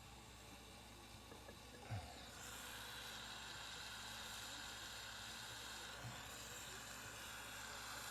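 A soldering torch flame hissing steadily, starting about two and a half seconds in just after a short knock, while pins are soldered onto a piece of jewellery.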